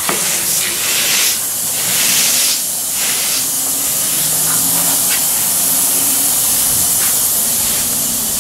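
Hand sanding on a car roof with a sanding pad: rasping strokes, the strongest two in the first three seconds, over a steady high hiss.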